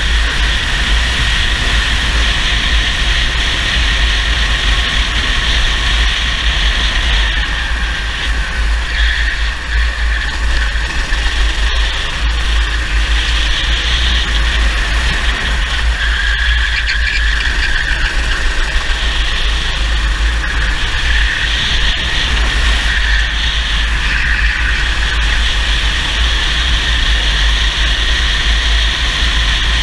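Racing kart engine heard from on board, running hard at high revs with a high, steady whine whose note dips and rises a few times through the lap. A heavy low wind rumble on the microphone lies underneath.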